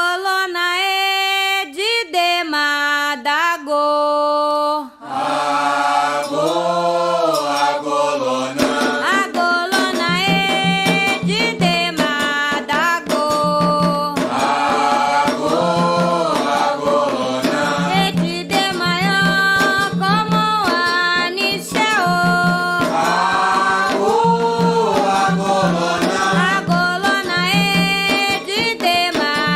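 A Candomblé song for Xangô begins with a lone voice singing the first line without accompaniment. More voices enter about five seconds in, and drums and percussion come in around nine seconds, carrying on under call-and-response singing.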